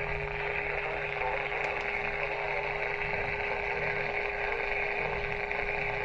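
AM radio reception noise: a steady hiss and static with a constant whine and a low hum underneath.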